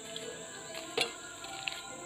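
A single sharp chop about a second in: a sword blade striking a block of belian (ironwood), with a fainter tap later, over steady background music.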